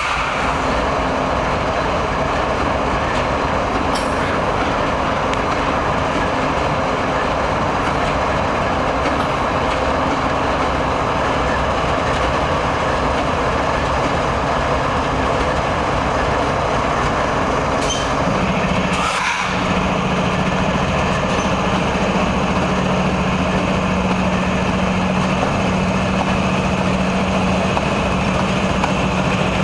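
Canadian Pacific GE ES44AC diesel-electric locomotives running as they roll slowly past at close range: a steady engine rumble mixed with the noise of wheels on rail. About 19 seconds in the sound briefly drops, and after that a steady low engine hum sits over it.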